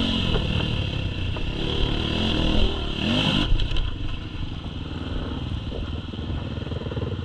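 Enduro dirt bike engine running under throttle as the bike crosses gravel and rough grass. It revs up once about three seconds in, then drops to a lower, steady run as the throttle closes and the bike slows.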